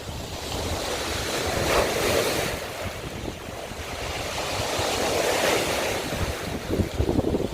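Sea waves breaking and washing over a shore of broken scallop shells, swelling twice, about two and five seconds in, with wind buffeting the microphone.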